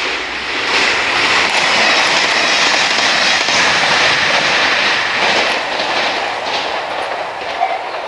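A train passing over a level crossing: a loud rush of running noise that swells about a second in and slowly eases off, with a few wheel clicks over the rail joints in the second half.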